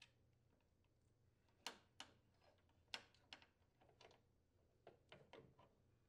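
Faint, scattered small metal clicks and taps as the nut is taken off a snowblower's idler arm mounting bolt by hand and the idler arm is worked loose.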